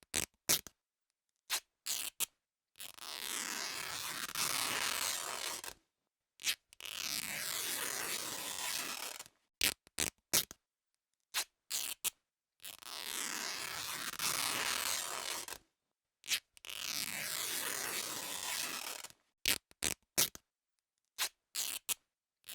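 Cloth being ripped by hand: four long tears of about three seconds each, with several short, quick rips between them.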